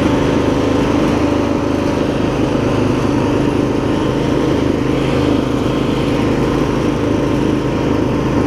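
20-horsepower V-twin engine of an MTD Lawn Chief garden tractor running steadily at a constant speed while the tractor drives.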